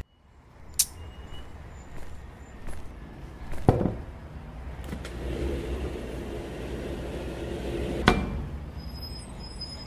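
A few sharp knocks and clicks: three stronger ones, about a second in, near four seconds and about eight seconds in, over a steady low rumble and hiss.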